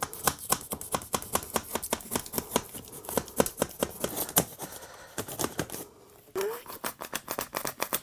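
Utility knife blade cutting through a pink extruded polystyrene foam board, a rapid run of crackling scrapes as the blade is pushed through. There is a short pause about six seconds in, then a brief squeak as the cutting starts again.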